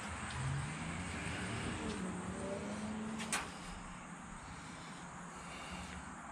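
A distant engine, its pitch rising for about three seconds and then dropping away, with one sharp click about three seconds in.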